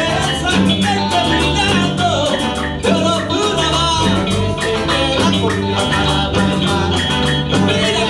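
Live band playing a cumbia, electric guitars and bass over congas and hand percussion with a steady, even beat.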